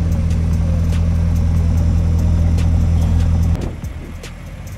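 Nissan SR20VE four-cylinder engine in a VW Golf Mk1 idling steadily, then stopping abruptly about three and a half seconds in.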